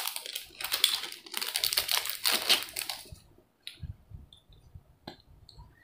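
Small clear plastic zip-lock bag crinkling and rustling in the hands as it is opened and a coin in a plastic capsule is drawn out; the crinkling stops about three seconds in, leaving a few faint clicks of the capsule being handled.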